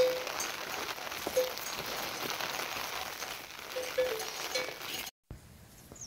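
Steady hiss of light rain with a few short, clear ringing notes. It cuts off about five seconds in and goes much quieter.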